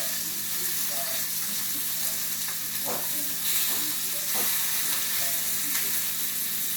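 Salmon fillets sizzling as they sear in olive oil in a frying pan: a steady hiss, with a few faint brief knocks.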